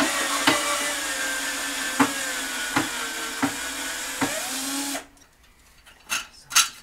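Cordless drill-driver running for about five seconds, slowing slightly under load and picking up again just before it cuts off, with a few sharp clicks along the way. Two short knocks follow near the end.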